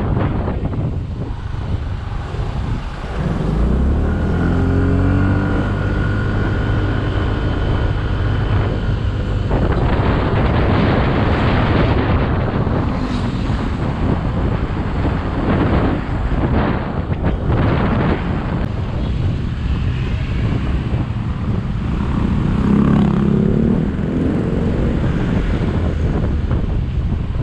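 Wind buffeting a helmet-mounted camera's microphone while riding a Yamaha Mio Gravis scooter, with the scooter's engine humming underneath. The engine's pitch rises about three to five seconds in, then holds steady for several seconds.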